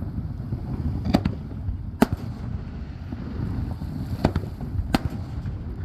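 Aerial fireworks shells bursting: four sharp bangs at uneven intervals over a steady low rumble.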